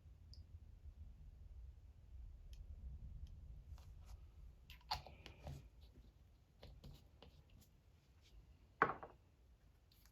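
Faint clicks and taps of small paint bottles and tools being handled while a little black airbrush paint is mixed, with a sharper knock near the end.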